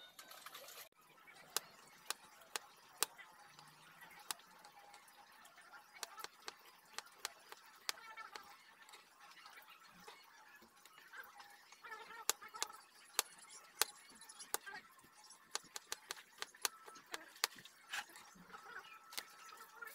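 Kitchen knife chopping on a plastic cutting board: irregular sharp taps, some in quick runs and others with short pauses between.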